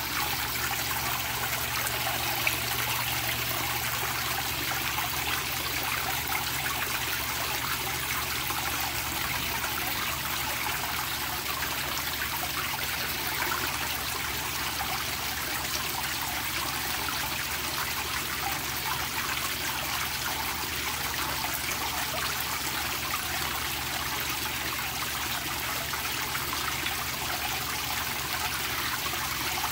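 Water pouring steadily from a pipe into a koi tank, splashing and churning the surface.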